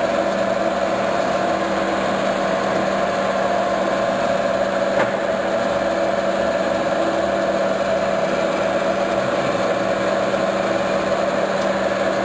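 Metal-turning lathe running steadily, its spindle and gearing giving a constant hum with a couple of steady tones. A single click sounds about five seconds in.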